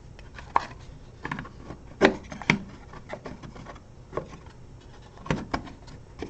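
Thin pre-cut wooden panels of a craft bird feeder knocking and scraping as they are pushed into their slots: a series of light clicks and taps, loudest about two seconds in.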